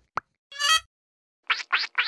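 Cartoon larva characters' sounds: a couple of short clicks and a brief pitched plop-like effect, then rapid repeated giggling bursts that start about a second and a half in.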